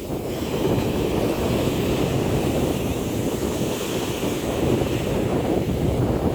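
Strong wind blowing across the microphone over the steady rush of heavy surf breaking on a beach.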